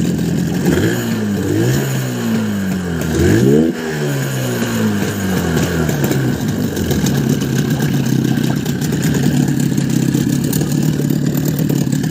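HDX 30 outboard motor revved three times in quick succession, each rise in pitch falling back, then settling to a steady idle from about seven seconds in. It runs without sneezing on its freshly adjusted carburettor mixture and idle settings.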